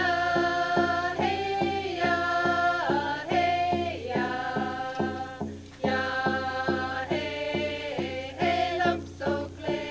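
First Nations song: voices chanting in unison over hand drums beaten in a steady beat, about three strokes a second.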